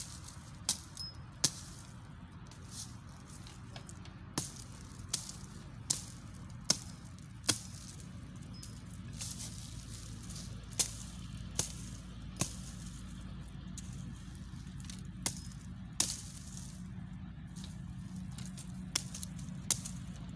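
Small hatchet chopping thin dry brushwood: sharp single chops in runs of three or four, about one a second, with pauses between the runs. A steady low rumble lies underneath.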